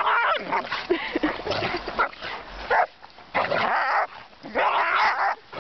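Giant schnauzer and puppy play-fighting: short growls, yips and barks in irregular bursts.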